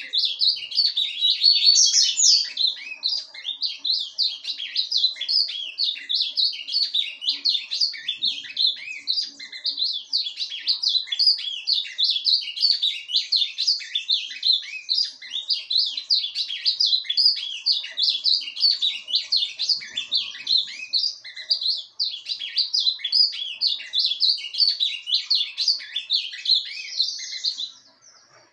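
Caged ultramarine grosbeak (azulão) singing an unbroken, rapid run of short chirps and warbled notes that stops shortly before the end. The keeper asks whether this is 'surdina', the soft, rambling song.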